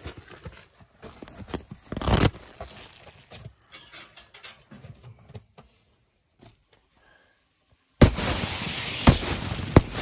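Ice pellets ticking and pattering irregularly on the tent fabric, with one louder burst about two seconds in. About eight seconds in, a loud steady rushing noise starts abruptly, with a few knocks in it.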